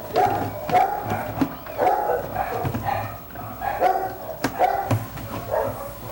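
Dog barking repeatedly in short, irregular barks, a bark or two each second.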